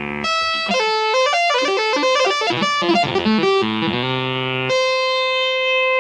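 Music: an instrument plays a quick run of notes, then holds one long steady note from about three-quarters of the way in.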